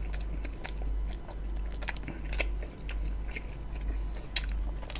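Close-miked chewing of roti John with its meat filling: wet mouth clicks and smacks coming irregularly, over a low steady hum.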